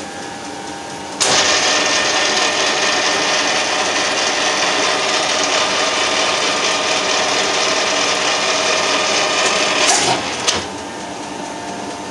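Colchester Triumph 2000 geared-head centre lathe running in reverse after a screwcutting pass, a steady mechanical whir with gear whine. It starts suddenly about a second in and stops near the end, followed by a single knock.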